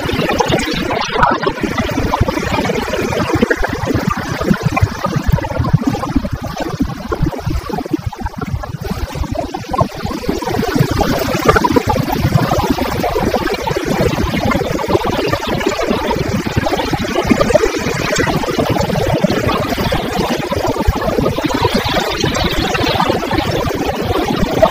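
Wind buffeting the camera microphone while riding a BMW F800GS motorcycle, with the bike's parallel-twin engine running underneath.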